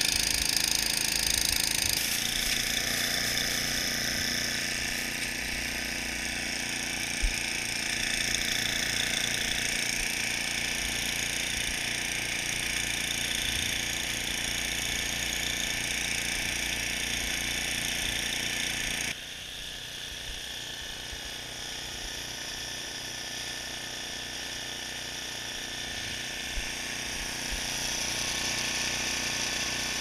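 Snowblower engine running steadily while the machine throws snow. The sound drops a little in level about two-thirds of the way through and carries on steadily.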